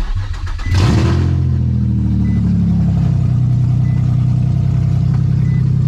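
Infiniti G35's 3.5-litre V6 cranked and started, catching about a second in with a short rev flare, then settling to a steady, very loud idle. It is running with no exhaust attached.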